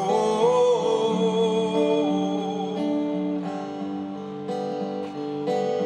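Live solo acoustic guitar, a jumbo-bodied steel-string, strummed and ringing in a slow chord pattern, with a held, wavering sung note over it in the first two seconds.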